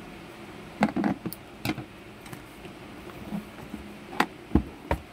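Hands working open a sealed cardboard mouse box without a cutter: scattered sharp taps, clicks and scrapes of the packaging, a cluster about a second in and several more near the end.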